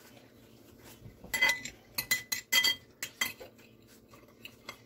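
Metal fork clinking against a ceramic dinner plate while picking up bites of pie. Several sharp clinks come in clusters from about a second in, with a short ring after each.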